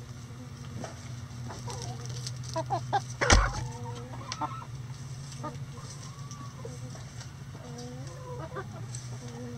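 Backyard hens clucking with short calls while foraging, with one sharp loud thump about a third of the way in, over a steady low hum.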